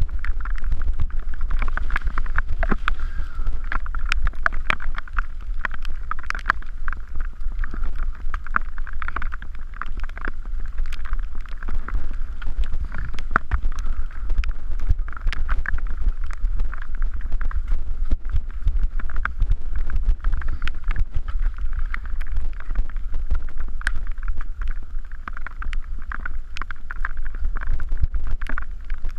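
Wind rushing over the microphone of a mountain bike's on-board camera on a fast descent of a wet dirt and gravel trail, with the bike constantly rattling and clattering over the rough ground.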